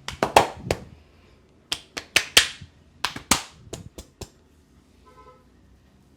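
Sharp slaps and cracks from a barber's hands on a client during a massage, in three quick bursts of four to six strikes each.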